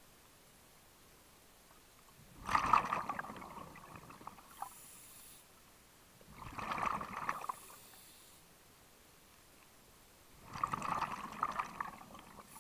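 Scuba diver breathing through a regulator underwater: three bursts of exhaled bubbles about four seconds apart, each a second or two long, with a faint hiss of inhalation between them.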